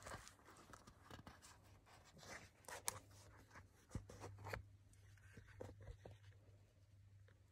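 Faint handling noises of a ring binder and its paper and plastic sheets being moved on a table: scattered light taps, clicks and rustles, the sharpest about three seconds in, over a low steady hum.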